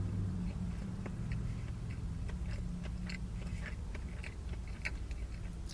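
A person chewing a bite of crispy fried chicken sandwich with the mouth close to the microphone: irregular small crunching clicks, several a second. A steady low hum runs underneath.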